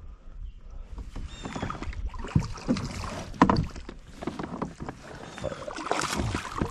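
Hooked bass splashing at the water's surface beside a kayak as it is scooped into a landing net, with irregular knocks and clatter of gear against the hull; the splashing is heaviest near the end.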